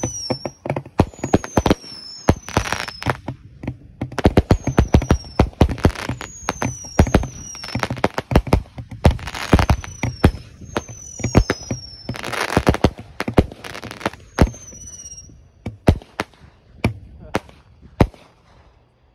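Barrage of twelve Roman candles firing in quick succession: a dense run of pops and booms as the shots leave the tubes and burst, with short whistles falling in pitch among them. Near the end the shots thin out to a few single pops.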